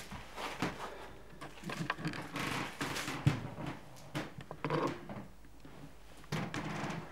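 Footsteps and the rustle of clothing and a handheld camera as a person walks through the rooms, with uneven knocks and scuffs and one sharper knock about three seconds in.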